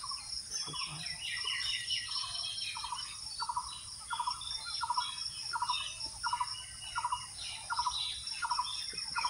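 Birds calling: one repeats a short note about twice a second, steadily, while others chirp higher over it. A steady high insect drone runs underneath.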